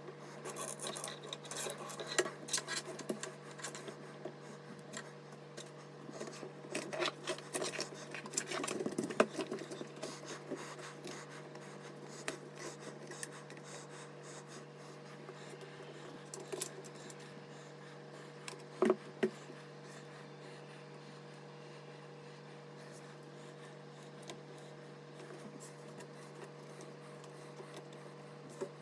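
Hands handling PC-build parts: rubbing, scraping and small clicks, busiest in the first ten seconds, then sparse, with two knocks later on, over a steady low hum.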